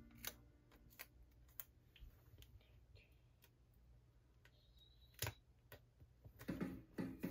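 Faint, scattered clicks and taps from hands handling and pressing a folded paper sheet on a tabletop, with one sharper tap about five seconds in. Background music with plucked-string notes comes back in near the end.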